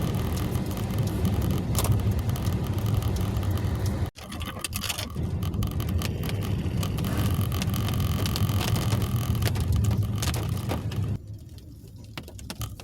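Steady road and engine rumble inside a moving car's cabin, with tyre hiss from the wet road surface. The rumble cuts out briefly about four seconds in and drops off sharply near the end.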